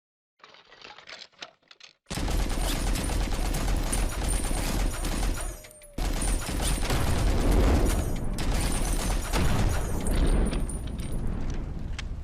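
Heavy construction machinery noise: a loud, dense rattle over a deep rumble, starting about two seconds in and dropping away briefly near the middle.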